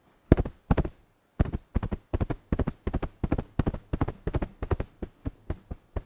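A pillow struck in a galloping rhythm to imitate a horse's hoofbeats for foley: soft thumps in quick groups of two and three, several a second, a little weaker near the end.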